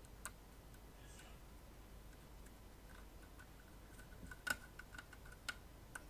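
Faint small clicks and ticks of a small screwdriver working the screw terminals on a circuit board as wires are clamped in, with a sharper click about four and a half seconds in.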